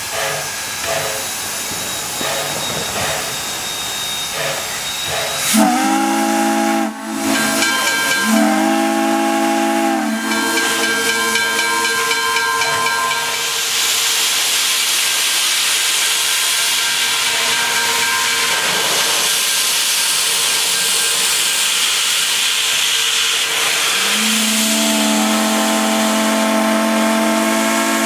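Wilmington & Western 0-6-0 steam locomotive No. 58: its steam whistle sounds two blasts a few seconds in, then a steady hiss of steam venting from the open cylinder cocks, and a longer whistle blast near the end.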